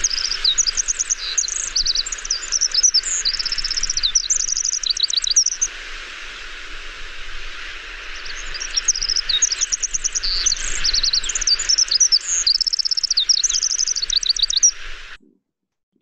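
Pacific wren singing: a high-pitched, fast jumble of rapid trills in two long bouts separated by a short pause, over steady background hiss. The recording stops about a second before the end.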